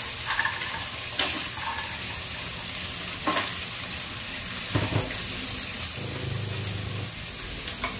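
Green mussels sizzling in hot oil in a stainless steel pot as they are sautéed, with a few sharp knocks of shells against the pot.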